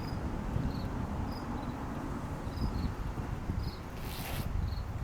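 Insects chirping: short high chirps repeating at a steady pace, often in pairs, over a low steady rumble, with a brief rustle about four seconds in.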